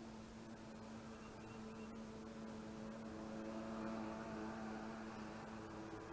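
Electric trolling motor on a fishing boat's bow running with a steady hum, growing a little louder about halfway through.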